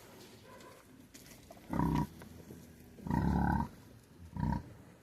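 Cattle calling three times: a short call about two seconds in, a longer one about a second later, and a brief one near the end.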